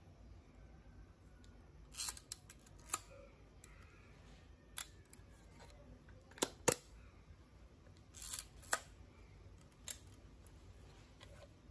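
Yashica YK rangefinder camera being handled as its hinged back is swung shut and latched: a scatter of sharp metal clicks and snaps, the loudest two in quick succession a little past the middle.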